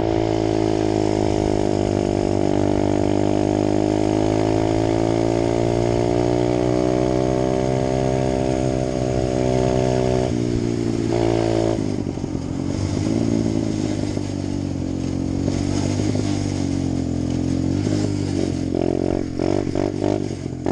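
Apollo 125cc dirt bike's single-cylinder four-stroke engine running, cutting in suddenly. For about ten seconds it holds a fairly even pitch, then the revs rise and fall repeatedly as the throttle is worked.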